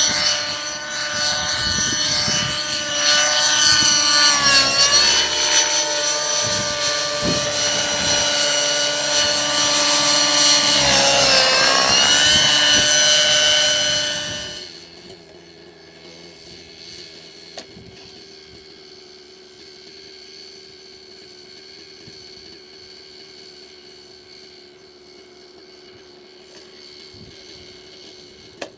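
Align T-Rex 600 radio-controlled model helicopter in flight: a steady whine from its rotor and drive that dips in pitch twice as it manoeuvres. About halfway through the sound cuts off abruptly, leaving only a faint steady hum.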